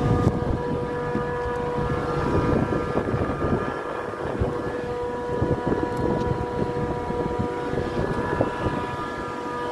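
Trane air-cooled chiller running: a steady machine hum with several held tones, over a fluctuating low rumble of wind on the microphone.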